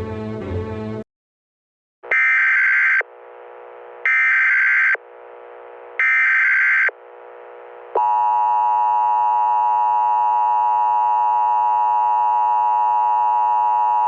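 Orchestral music cuts off about a second in. After a brief silence come three one-second bursts of Emergency Alert System SAME header data tones, a second apart, then the steady, harsh two-tone EAS attention signal begins about eight seconds in.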